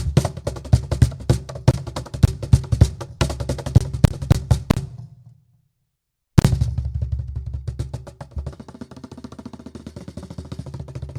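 Live percussion from one seated player on cajon, bongos, tabla and shaker, played with both hands and a foot. A fast run of sharp drum strokes, about four or five a second, stops about five seconds in. After about a second of silence comes one loud hit, then a softer pattern with a hiss over it that stops near the end.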